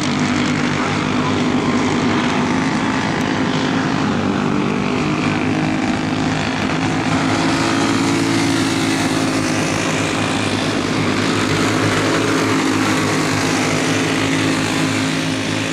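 Racing go-kart engines running on the track: a steady buzzing engine drone whose pitch rises and falls a little as the karts accelerate through the corners.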